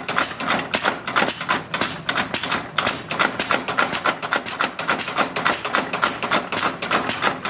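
Rapid, even hammer blows on steel, about seven a second without a break, as a Japanese kitchen-knife blade is forged.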